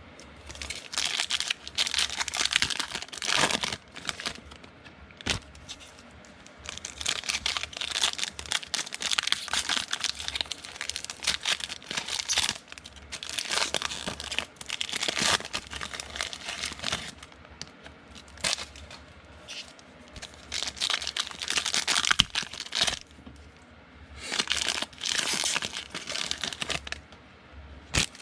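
Trading-card pack wrappers being torn open and crinkled by hand, in repeated bursts of a few seconds with short pauses between.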